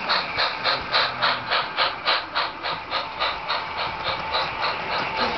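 HO-scale model steam locomotive chuffing steadily at about three chuffs a second as it runs past pulling its train.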